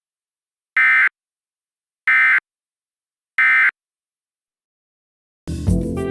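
EAS end-of-message (EOM) code: three short, identical bursts of SAME digital data tones, a harsh warbling squawk about a second apart, marking the end of the alert. Music starts near the end.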